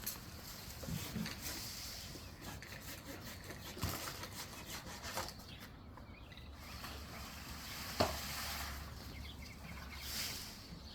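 Scraping and rubbing against wood, broken by a few sharp knocks; the loudest knock comes about eight seconds in.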